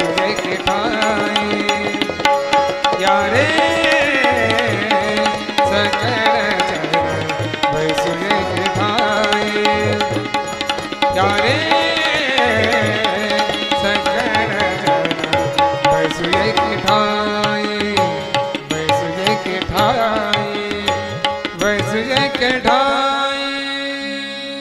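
Instrumental close of a Marathi abhang: harmonium and violin carry the melody in sliding phrases over a steady tabla beat. Near the end the music thins and fades.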